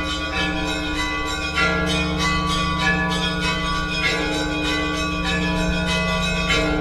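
Orthodox church bells ringing together: quick, repeated strokes of smaller bells, several a second, over the steady hum of larger bells ringing on.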